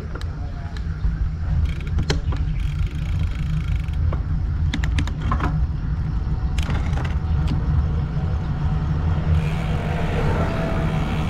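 Wind buffeting the bicycle-mounted GoPro's microphone as the bike rolls downhill and gathers speed: a steady low rumble with scattered sharp clicks and rattles. A rushing hiss of air builds near the end as the bike goes faster.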